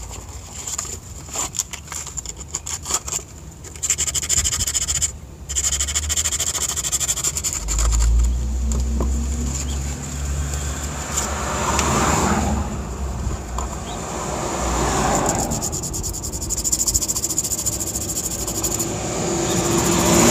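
Abrasive paper rubbing and scraping the metal contacts of a Jeep Cherokee's neutral safety switch to clean off grime and corrosion. There are quick short strokes over the first few seconds, then steadier rubbing. A low rumble swells and fades behind it.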